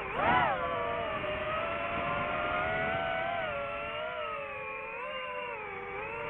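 DJI FPV drone's motors and propellers whining, the pitch jumping up sharply about a third of a second in and falling back, then holding fairly steady and wavering with throttle.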